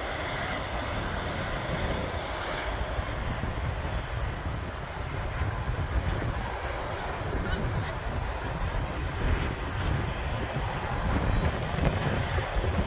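Jet engines at takeoff power: a steady, broad rush with a thin high whine, growing somewhat louder near the end.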